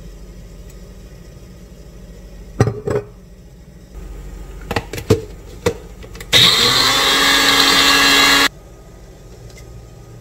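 Magic Bullet blender motor running for about two seconds, spinning up fast and cutting off sharply when released, as it grinds garlic, spices and oil into a spice paste. Before it come a few sharp knocks and clicks of the plastic cup being handled and set on the base.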